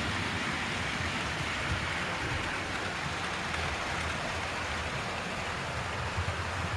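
OO gauge model trains running on the layout: a steady rushing whirr of small electric motors and metal wheels rolling on track, with a low hum underneath.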